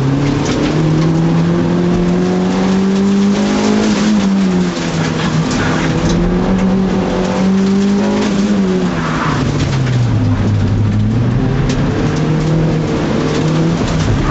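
A 2002 Toyota Celica GT-S's four-cylinder engine is run hard through an autocross course, with revs climbing and falling in turn. The revs drop sharply about four seconds in and fall off again near ten seconds in. After each drop the engine climbs back up, with steady road and tyre noise underneath.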